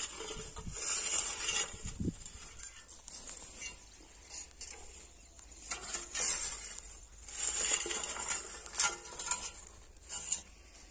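Hand-pushed wheel weeder scraping and crunching through dry, cloddy tilled soil. Its steel sweep blade and frame clink and rattle in irregular bursts as it is pushed along.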